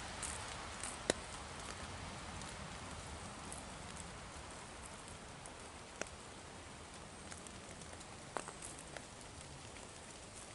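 Faint steady hiss of outdoor woodland ambience, with a few sharp clicks or snaps: one about a second in, one about six seconds in, and a small cluster around eight to nine seconds.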